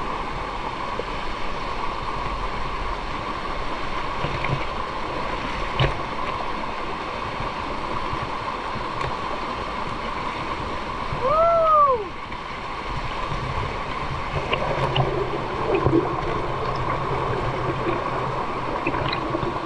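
Waterfall water rushing and splashing down the rock cascades in a steady stream. About eleven seconds in, a short rising-then-falling whistle-like call sounds over it.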